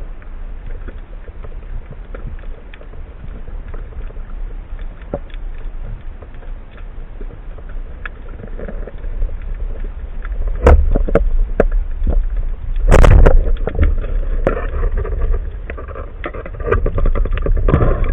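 Muffled water noise around a diver's camera, a steady low rumble with faint ticks. From about ten seconds in come knocks and splashing, with one loud rushing splash about thirteen seconds in.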